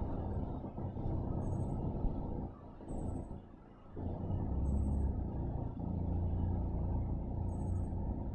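Gusting wind buffeting the microphone: a low rumble that swells and drops away in stretches. A faint, short, high double chirp recurs every second or two.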